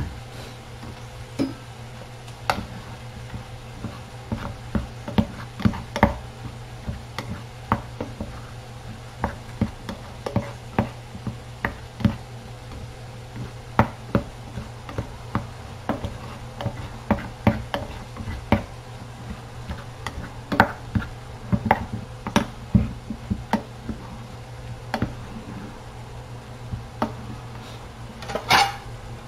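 A spoon scraping and knocking against a cooking pot of orzo, many short irregular clinks, with a denser cluster near the end as the orzo is spooned out onto a plate. A steady low hum runs underneath.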